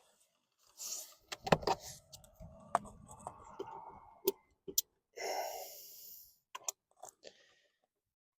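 A man breathing out hard, twice, with effort, amid scattered sharp clicks and knocks from working a gear linkage rod end onto its ball joint.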